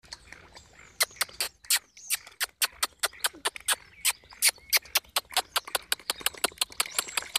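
A shoal of carp feeding at the surface on floating food. Their mouths make a rapid, irregular string of sharp smacking pops and small splashes, several a second.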